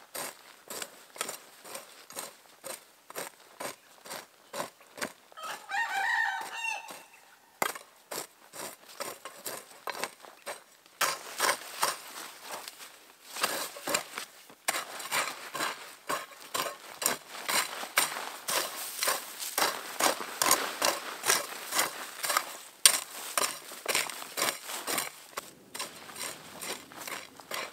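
Many sharp clicks and cracks go on throughout and are thickest through the second half. A chicken clucks briefly about six seconds in.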